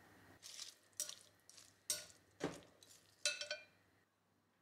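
Metal tongs tossing shredded cabbage coleslaw in a glass mixing bowl: about six short clinks of metal against glass, some briefly ringing, mixed with the rustle of the vegetables, stopping near the end.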